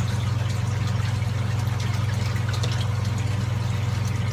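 Steady low hum of an electric motor running without change, with a few faint scratches of a marker drawing on film-covered acrylic.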